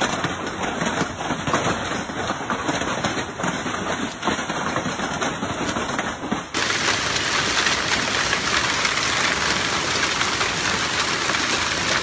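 Hailstorm: hail and heavy rain pelting the ground as a steady dense hiss, with scattered sharper individual hits. About six and a half seconds in, the sound switches abruptly to a denser, more even hiss of pelting hail.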